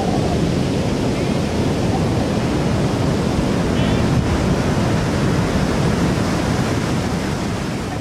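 Heavy surf breaking and washing up the beach in a steady wash of noise, with wind rumbling on the microphone.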